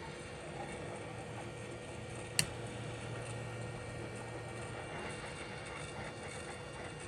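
Hot air rework station blowing a steady hiss while reflowing a phone motherboard's touch IC at 350 degrees. One sharp click about two and a half seconds in, followed by a low hum for a couple of seconds.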